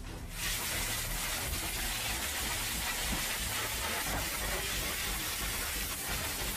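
Fire hose spraying a jet of water onto smouldering debris: a steady hiss that starts abruptly about half a second in.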